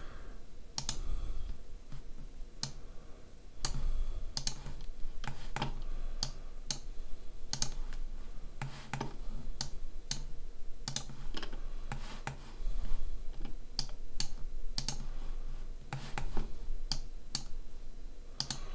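Irregular, sharp clicks of a computer mouse and keyboard, about one or two a second, over a faint low hum.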